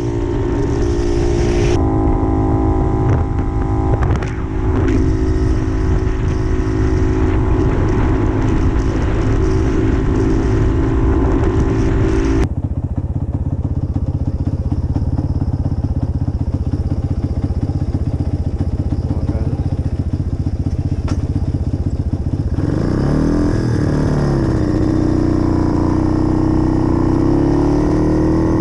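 Puch 250 TF's split-single two-stroke engine running while the motorcycle is ridden at a steady speed. About halfway through the sound changes to the engine running slowly in traffic. Near the end it is revved up and down once, then pulls away with the pitch rising.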